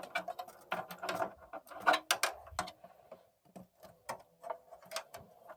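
Irregular clicks and plastic rattles of power cables being handled and a power connector pushed onto a Blu-ray drive, densest in the first few seconds and thinning toward the end.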